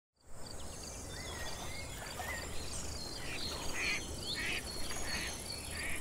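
Outdoor marsh ambience: birds whistling and calling over insects chirping steadily, with a low background rumble. A string of harsh, rasping calls comes about every half second in the second half.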